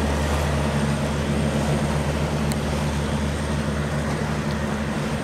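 Open deck-mounted engine of a river cargo boat running steadily under way, driving an angled long-shaft propeller, with water churning in the propeller wash.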